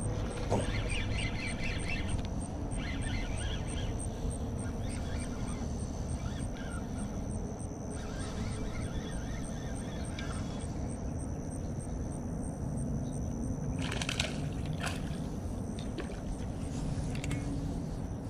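A spinning fishing reel being cranked in several short bursts over a steady low rumble. Near the end come one loud sharp knock or splash and a few smaller ones as the fish reaches the bank.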